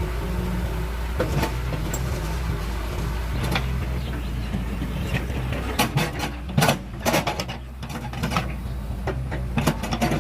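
A heavy machine's engine running steadily, with a string of sharp knocks and clanks from about six seconds in.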